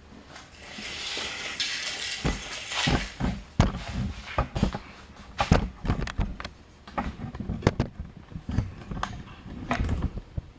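Handling rustle, then a run of sharp, irregular clicks and knocks as a hand saw set is squeezed onto the teeth of a rip saw, one tooth after another, to set them.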